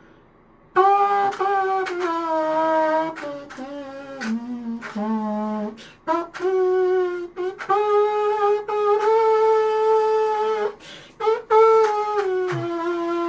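3D-printed rectangular trumpet playing a slow melody of held notes, starting about a second in, with short breaks between phrases.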